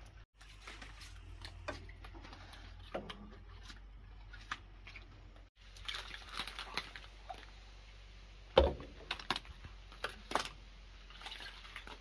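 Scattered light clicks and taps over a low steady hum, with one sharper knock about eight and a half seconds in; the sound breaks off briefly twice.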